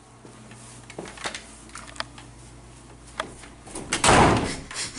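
An interior door being handled: scattered light knocks and clicks, then a louder rustling thump about four seconds in as the door is pushed open.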